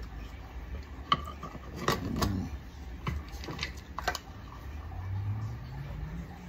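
Bakelite foot-controller housing being handled and pressed together. Several sharp clicks and knocks sound in the first four seconds as the two halves are fitted over the wiring.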